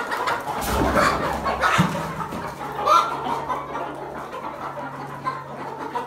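Kadaknath chickens clucking, several short calls in the first three seconds, with a brief rustle of movement about half a second in.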